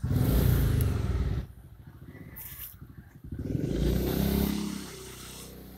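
A motor vehicle's engine, loud for the first second and a half and again about three to four and a half seconds in, its pitch dropping the second time, then a low steady hum.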